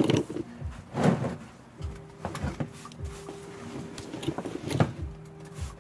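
A handful of scattered knocks and clunks, the loudest near the start, about a second in and near the end, over a faint steady hum.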